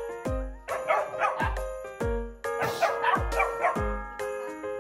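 Dog barking in two quick flurries of yaps, about a second in and about three seconds in, over background music with a steady beat.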